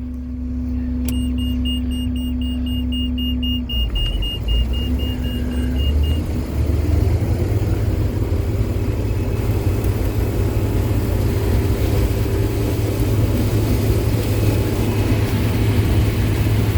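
Diesel engine of a farm machine running, throttled up about four seconds in and then holding steady at the higher speed. A rapid electronic warning beeper sounds over it for about five seconds.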